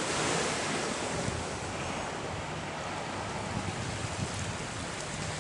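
Wind buffeting the microphone in a steady, fluctuating low rumble, over the constant wash of choppy open water.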